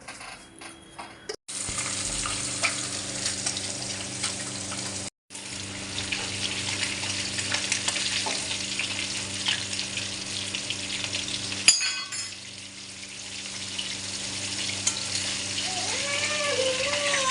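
Fish frying in hot oil: a steady crackling sizzle, broken by a few abrupt cuts, with a steady low hum underneath. Near the end a few short whining calls that rise and fall sound over the sizzle.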